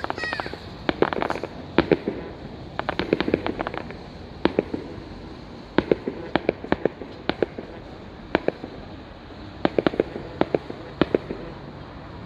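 Fireworks display: aerial shells bursting in irregular volleys of sharp bangs and crackles. The clusters come about a second in, around three seconds in, at six to seven seconds, and again at ten to eleven seconds, with a quieter stretch between eight and nine and a half seconds.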